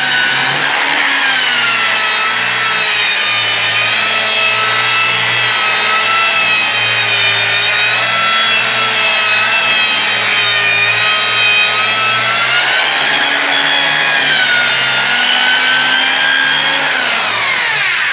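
Electric angle grinder with a coarse 60-grit sanding disc, sanding a wooden door. Its motor whine wavers in pitch as the disc is pressed into the wood and eased off, then winds down near the end.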